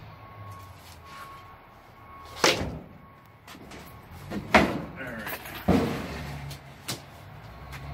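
Wooden picture frames and boards knocking against a corrugated metal wall and each other as they are handled and stacked: four sharp knocks a second or two apart, the first the loudest, with lighter clatter between.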